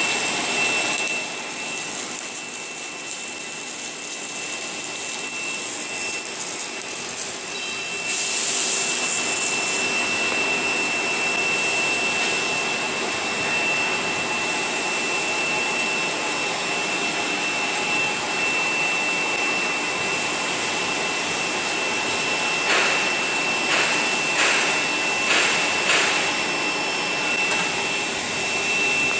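Automatic submerged-arc welding machine running along a steel semi-trailer main beam: a steady blower-like rush with a constant high whine. A louder hiss comes about eight seconds in, and a few short knocks come near the end.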